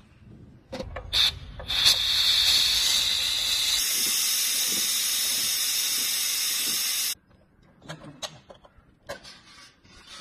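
Portable pressure steam sterilizer (autoclave) venting steam from its lid: after a couple of short spurts, a loud steady hiss starts about two seconds in and cuts off suddenly about seven seconds in, the chamber's pressure being released. A few light clicks and knocks follow near the end.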